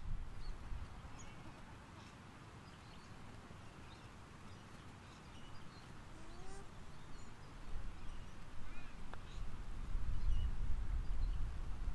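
Birds calling outdoors, with scattered short chirps and a couple of lower gliding calls about halfway through. Underneath is a low rumble of wind on the microphone that grows stronger near the end.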